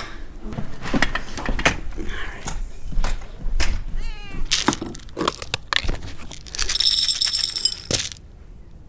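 A domestic cat gives one drawn-out, high meow late on, after a string of sharp clicks and knocks.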